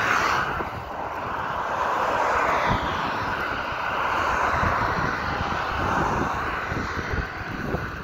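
A passing vehicle: a steady rushing noise that swells over the first couple of seconds, holds, and eases near the end. Wind buffets the microphone throughout.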